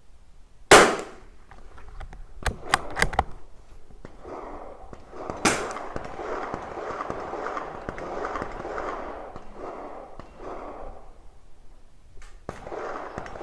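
A single shot from a Tikka T1x .22 LR bolt-action rimfire rifle, a sharp crack about a second in, followed a couple of seconds later by a quick run of metallic clicks as the bolt is worked to chamber the next round; a smaller, quieter crack comes near the middle.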